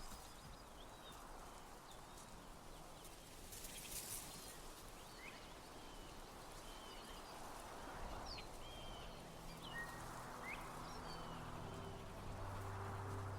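Small birds chirping now and then over a faint outdoor background, with low steady music tones fading in about nine seconds in.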